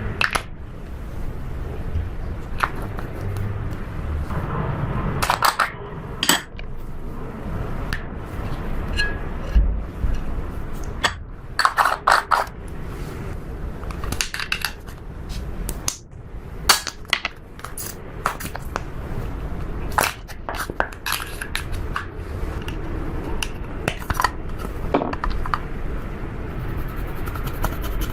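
Slime being mixed and worked, with irregular clicks, pops and crackles and some scraping.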